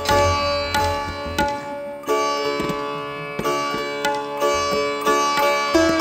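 Live Indian classical music: a plucked string instrument picks out a melody of ringing notes, with tabla strokes underneath.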